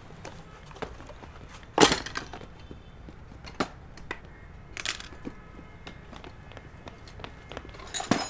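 Foley knocks and clinks of a suitcase and small objects being handled, with one sharp loud knock about two seconds in and another near the end, over steady low background noise.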